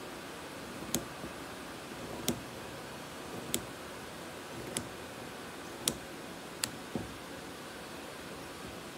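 Fabric scissors snipping through folded fabric in an angled cut: a short sharp click each time the blades close, roughly once every second and a quarter, six or seven in all, with two close together near the end.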